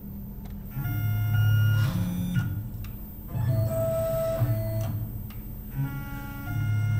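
Tormach PCNC 1100 mill's stepper-driven table axis jogging in several short spurts. Each spurt is a low hum with a steady high whine, starting and stopping, and its pitch differs from one spurt to the next.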